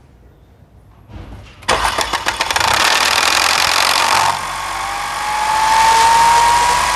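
Mercedes-Benz M271 four-cylinder engine being cranked on a cold start: the starter turns it over for about two and a half seconds, then the sound changes to a steadier run with a slowly rising whine. Slow starting like this, with a chain-like noise, is the typical sign of worn camshaft adjuster (phaser) gears.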